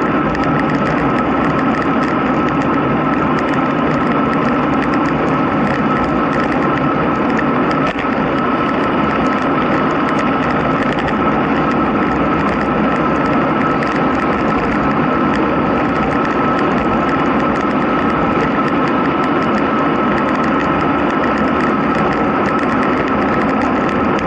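Wind rushing over the microphone and tyre noise on asphalt while descending a mountain road at about 35 km/h. It is a loud, steady rush with a thin steady whine running through it and a fine crackle on top.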